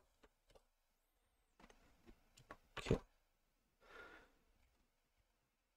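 Faint clicks from a computer mouse and keyboard, with one louder click about three seconds in, followed by a short breath or sigh about a second later.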